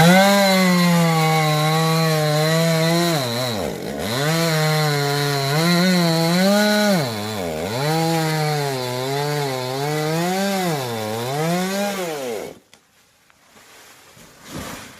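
Two-stroke chainsaw running at high revs while cutting wood, its engine note sagging and recovering several times as the chain bites, then cutting off suddenly near the end.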